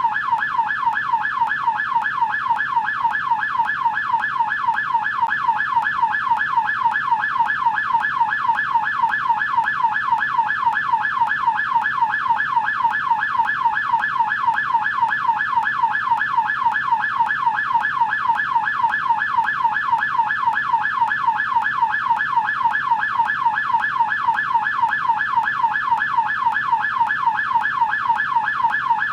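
American police car electronic siren on the yelp setting, its tone sweeping rapidly up and down several times a second without a break.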